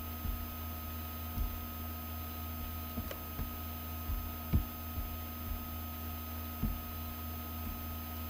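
Steady electrical hum with a faint high steady tone, broken by a handful of soft, short low bumps, the strongest about four and a half seconds in.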